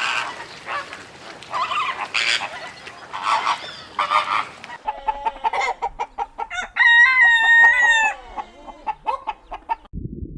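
Chickens clucking, then a rooster crowing from about five seconds in, its crow ending on a long held note.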